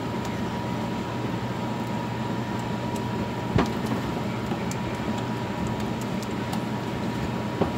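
Pancake batter frying in oil in two frying pans: a steady sizzle over a low hum, with a sharp click about three and a half seconds in and another near the end.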